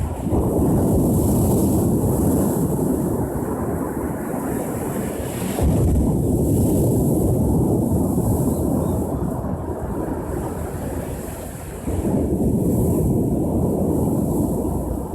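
Ocean waves breaking on the shore: a heavy, low rushing that surges up sharply three times, about six seconds apart, and eases off between. Wind buffets the microphone.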